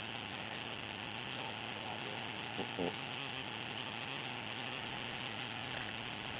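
Steady faint hiss of the shallow water around the waders, with a short faint sound a little under three seconds in.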